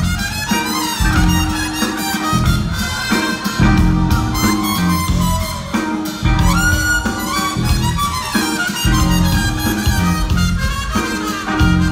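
Live funk band playing an instrumental passage, with a lead melody on a wind instrument over bass, guitar and drums.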